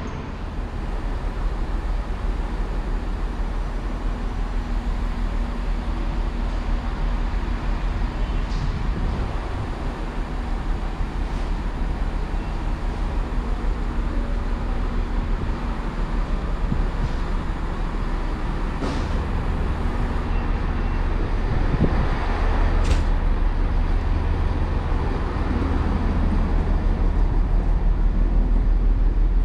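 Class 68 diesel-electric locomotive idling, its Caterpillar V16 diesel engine giving a steady deep rumble that grows louder near the end, with a few brief clicks.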